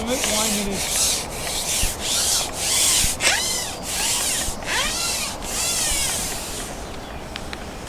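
Rhythmic rubbing strokes, about eight in a row, each around half a second long.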